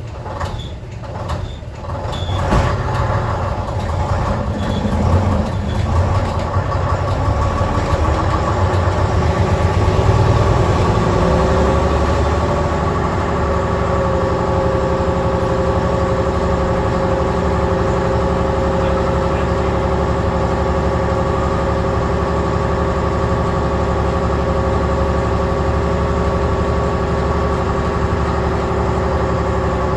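Leyland Titan OPD2/1 bus's six-cylinder diesel engine heard from inside the saloon, pulling away and building up speed over the first ten seconds or so. It then settles into a steady run at speed with an even whine.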